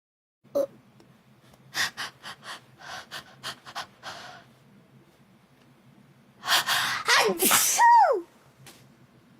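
A woman's allergy sneeze: several quick gasping in-breaths in a row, then a loud sneeze that ends in a falling voiced cry.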